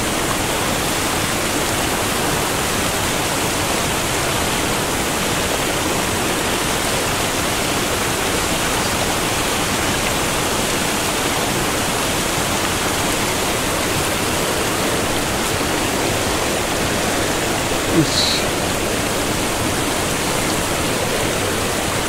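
Mountain stream water rushing, a steady even rush with no let-up. One brief short sound breaks in about eighteen seconds in.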